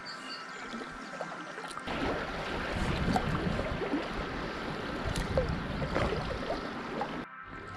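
Kayak paddling through a riffle: rushing, choppy river water around the hull with paddle strokes splashing. The water noise jumps up about two seconds in, after calmer water at first, and cuts out briefly near the end.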